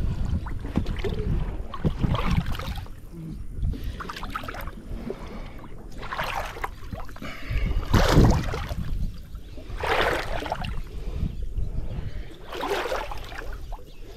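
Water splashing and sloshing in several separate strokes about two seconds apart, the loudest about halfway through, over a steady low rumble of wind on the microphone.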